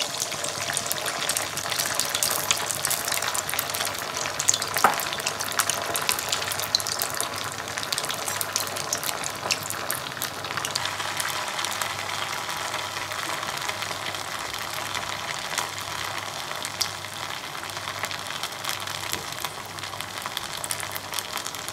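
Sabudana vada deep-frying in hot oil in a kadai on medium flame: steady sizzling thick with fine crackles and pops, with one sharper pop about five seconds in.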